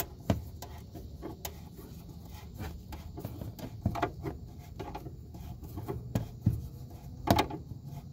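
Phillips screwdriver turning the spring-loaded fog light adjustment screw: irregular small clicks and scrapes of metal on plastic, a few louder knocks among them, over a steady low rumble.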